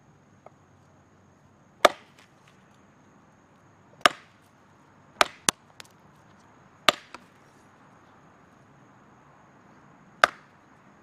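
Elk Ridge parang machete chopping pieces off a thin wooden branch laid across a log: six sharp chops spaced unevenly, two of them close together about halfway through.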